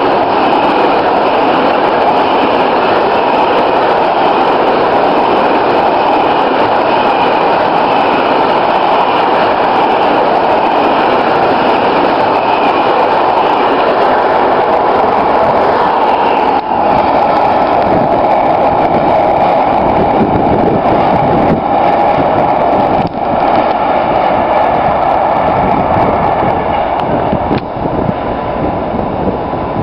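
Freight train's wagons passing close by at speed, a loud steady rolling noise. About halfway through, the sound shifts to a lower rumble with a few sharp wheel knocks.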